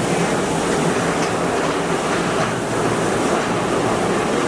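Steady rushing of water through a river rapids ride's channel.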